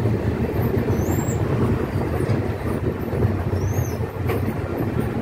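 Bangladesh Railway Ekota Express passenger train running over the bridge: a steady rumble of the wheels on the rails, heard from the side of the moving coach. Two faint, short high squeaks come about a second in and near four seconds.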